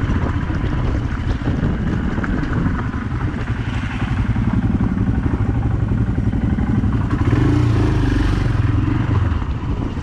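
Motorcycle engine running while being ridden, heard from the rider's seat. The engine note rises about seven seconds in and eases off near the end.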